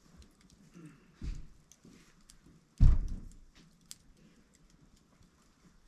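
Wood campfire crackling with scattered sharp snaps, and two dull thumps, the second and louder about three seconds in.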